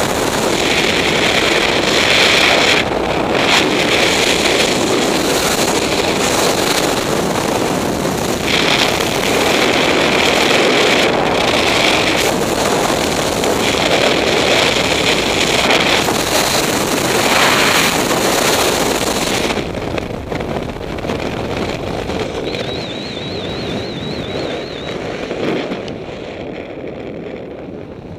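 Freefall wind rushing over a skydiver's camera microphone, a loud, steady roar. About two-thirds of the way through it drops sharply and turns duller, then fades further near the end, as the parachute opens and the fall slows.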